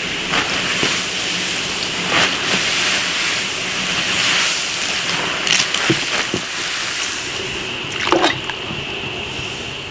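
Water at a rolling boil bubbling in a large iron wok, with sloshing as leafy greens are pushed in to blanch and a splash about eight seconds in as they are lifted out to drain.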